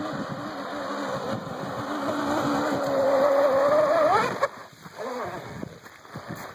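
Traxxas Blast RC boat running fast on a 9-turn Leopard brushless motor: a high motor whine with water hiss, rising in pitch and loudness. It sweeps up sharply and stops just after four seconds in.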